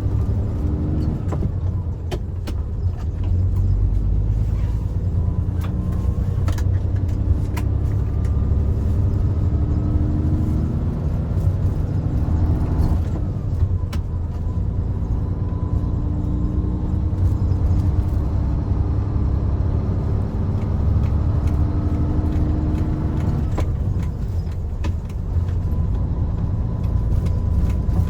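Hino Profia heavy truck under way: engine and drivetrain pitch, with a thin whine above it, climbs steadily through a gear, then drops at a gear change, twice.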